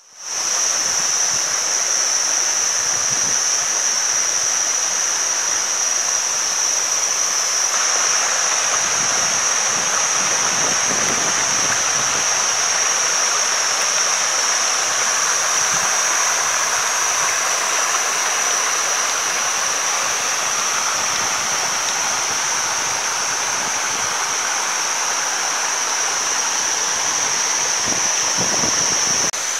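Shallow river water flowing over flat bare rock, a steady rushing noise, with a continuous high-pitched shrill drone above it.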